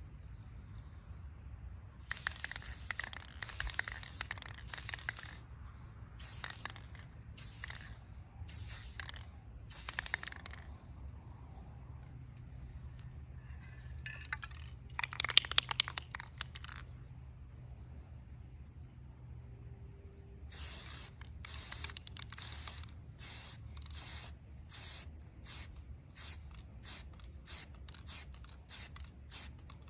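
Aerosol spray paint can hissing in bursts: several sprays of one to two seconds each in the first ten seconds, then a quick run of many short puffs over the last nine seconds. About halfway there is a louder, clattering burst.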